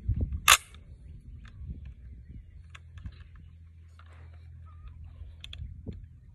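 One sharp metallic clack of an AR-15 pistol's action about half a second in, then scattered light clicks and rattles as the rifle is handled and worked.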